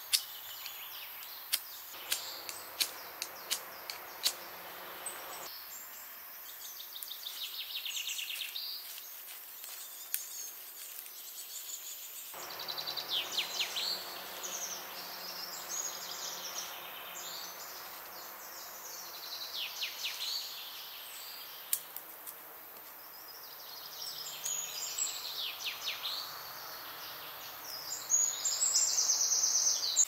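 Woodland birds singing and chirping throughout, with a series of sharp clicks in the first five seconds.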